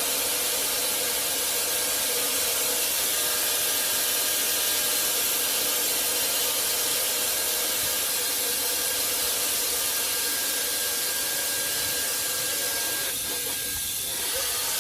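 Hair dryer with a brushless (BLDC) motor running steadily, a loud even rush of air with a thin high motor whine over it. The sound dips a little for about a second near the end.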